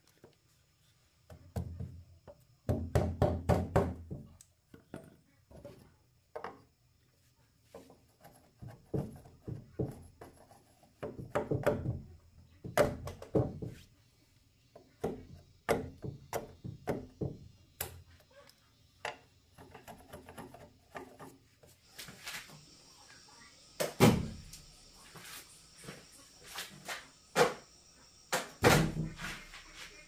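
Irregular thuds and knocks, some coming in quick runs. A steady high hiss joins about two-thirds of the way through.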